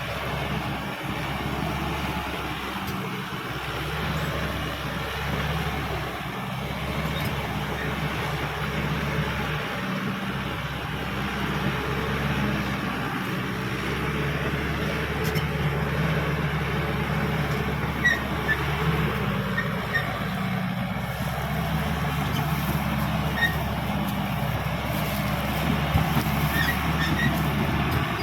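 Caterpillar D5K XL bulldozer's diesel engine running steadily under working load, with a few short high squeaks in the second half.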